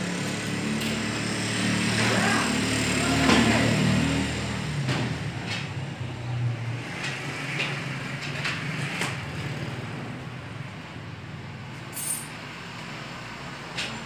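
A motor vehicle's engine rumble swelling to a peak about three seconds in and fading away, followed by a few scattered light knocks.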